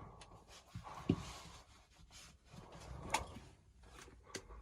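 Scattered knocks and clicks with some rustling inside a camper van as its door is handled and opened.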